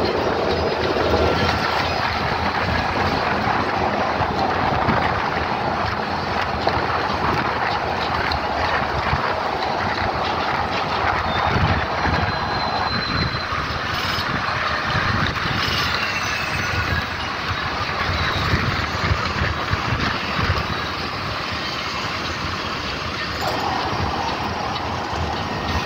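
Continuous road noise of a moving vehicle, heard from inside through an open window: engine, tyres and wind rush, with no break.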